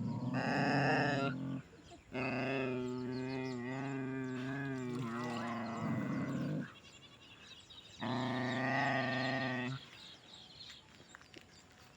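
A dog giving three long, drawn-out howls with a wavering pitch, the middle one the longest at about four and a half seconds.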